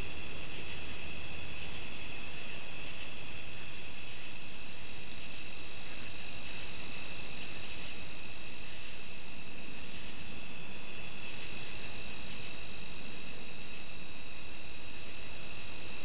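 Night insect chorus of crickets: a steady, shrill, high trilling, with a higher chirp repeating about once a second.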